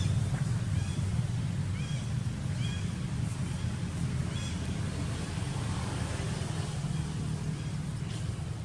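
Outdoor ambience: a steady low rumble, with faint short high chirps every second or so during the first half.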